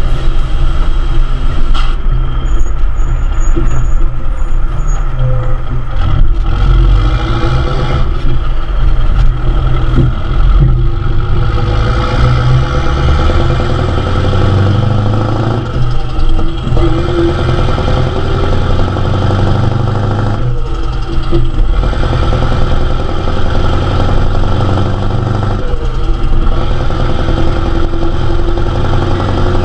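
Heavy vehicle's diesel engine running steadily at road speed, with tyre and wind noise on a camera mounted close beside the wheel.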